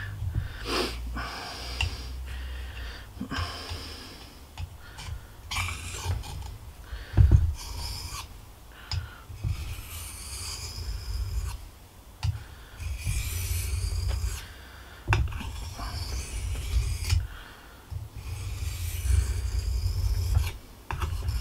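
Knife blade stroked back and forth across the 1000-grit side of a white corundum whetstone: irregular scraping strokes with short pauses between them, over a low rumble of handling on the mat, with a few sharp clicks. The edge is felt to be grinding on the stone.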